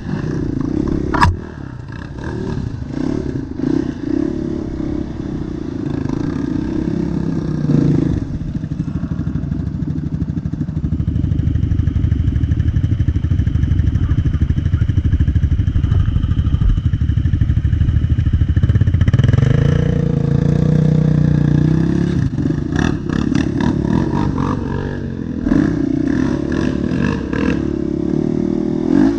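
Quad bike (ATV) engine running under load as it is ridden through mud. It holds steady revs in the middle, then revs up and down about two-thirds of the way in, with a sharp knock about a second in and clattering near the end.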